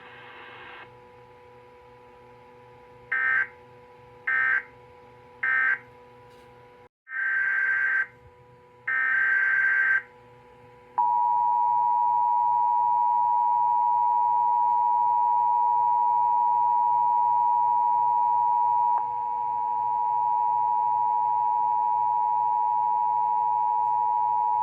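Emergency Alert System signalling on a weather radio broadcast: three short end-of-message data bursts, then two longer buzzing SAME header data bursts. About eleven seconds in, a loud, steady two-tone attention signal starts and holds, over a faint steady hum.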